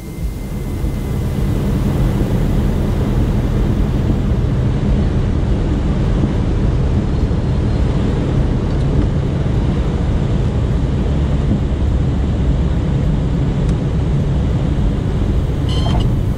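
Cabin noise of a Mooney single-engine piston airplane landing: a steady drone of engine and propeller with rushing wind. It comes up over the first second or so and holds steady through the approach and touchdown roll.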